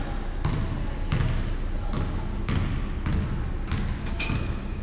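A basketball dribbled on a hardwood gym floor, about six irregular bounces. There are brief sneaker squeaks on the floor about half a second in and again near the end.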